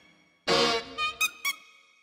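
Music played entirely with sampled bike-horn honks, a MIDI arrangement of an anime soundtrack tune. After a short pause, a loud chord of honks about half a second in is followed by three short honks in quick succession, which then fade out.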